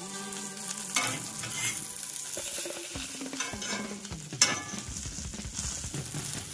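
Breaded pork chops frying in a cast-iron skillet with a steady sizzle, while a fork moves them and clicks against the pan a few times, the sharpest click about four and a half seconds in.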